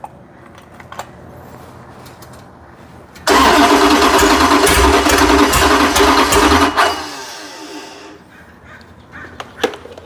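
512 cubic inch big block Mopar V8 on an engine run stand starting suddenly about three seconds in, running loudly for about three and a half seconds, then cutting out. The builders take it to be getting a lot of fuel.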